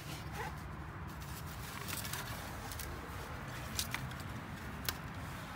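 A few light, sharp clicks and taps, about five spread through, over steady background noise.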